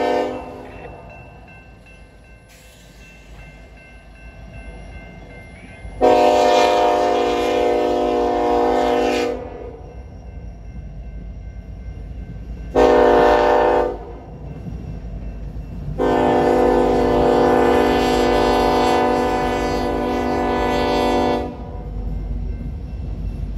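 Union Pacific freight locomotive's air horn sounding the grade-crossing signal. The tail of one blast ends just after the start, then come a long blast about six seconds in, a short one around thirteen seconds and a long one from about sixteen to twenty-one seconds. All of it rides over the low rumble of the train, which grows as the grain cars roll past near the end.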